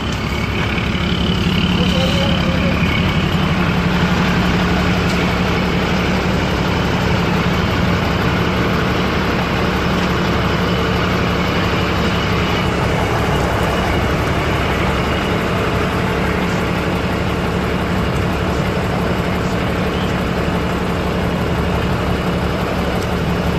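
Large vehicle's engine idling close by, a steady low hum.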